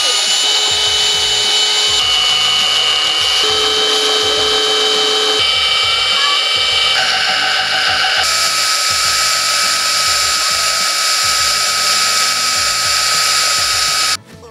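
Electric belt sander running steadily with the end of a plastic pipe held against the moving belt: a loud, even grinding hiss with a whine whose pitch jumps a few times. It cuts off suddenly near the end.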